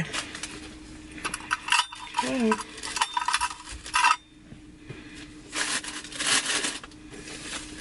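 Metal wire whisks and kitchen utensils clinking against a glass pot lid, with tissue paper rustling, as a gift basket is rearranged by hand. A short hum of voice about two seconds in.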